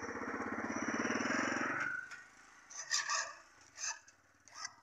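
A motorcycle engine running close by, with a fast, even pulse. It grows louder over the first second and a half, then cuts away sharply about two seconds in, and a few light clicks and taps follow.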